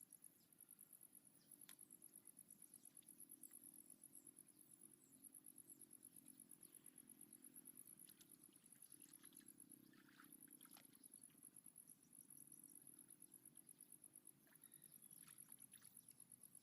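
Faint insect trilling: a high-pitched, rapidly pulsing chirr that breaks off briefly a few times, over a low hum, with a few light clicks.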